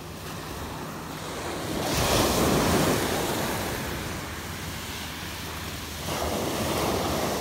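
Surf breaking on a shingle beach: waves wash up the shore twice, swelling about two seconds in and again near the end, with wind rumbling on the microphone.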